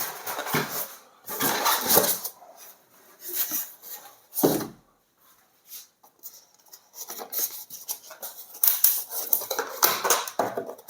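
Hands handling the saw's packaging: irregular rustling, clicks and light clatters, with a single knock about four and a half seconds in and a busier run of clicking and clattering near the end.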